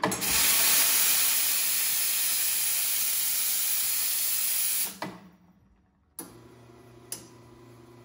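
La Marzocco FB80 espresso machine's steam wand opened and blowing a strong, loud hiss of steam for about five seconds, then shut off. About a second later a steady low hum starts, the machine's pump motor running as both groups brew, with a single click near the end.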